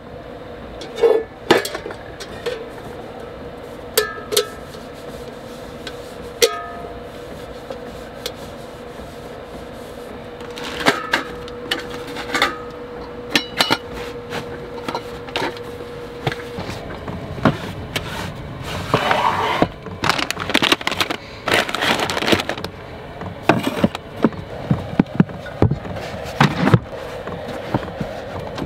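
Dish cleanup and packing away: scattered knocks and clinks of cookware, then rustling of a nylon stuff sack in the second half. A steady hum under them stops partway through.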